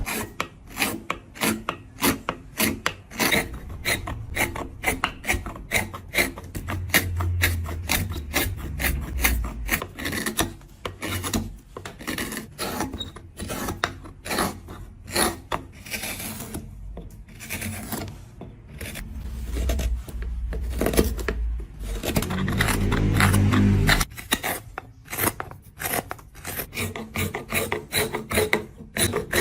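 Quick, repeated scraping strokes of a hand tool on wood, several a second, like a rasp or file working a wooden piece. A low steady hum comes in for a few seconds twice.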